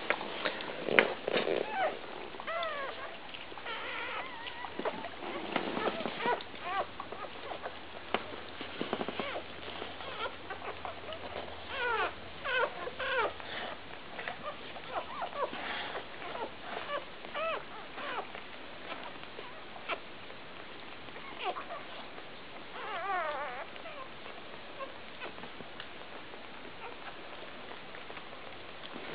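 Newborn Labrador retriever puppies squeaking and whimpering in short, high, sliding cries that come in scattered clusters and thin out near the end.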